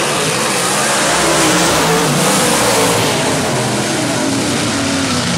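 A pack of dirt-track modified race cars running at speed on a dirt oval, their engines revving up and down together, a little louder in the middle as the cars pass closest.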